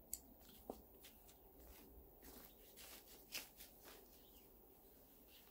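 Near silence, with a few faint soft clicks and rustles of hands working potting soil in around a cutting's roots.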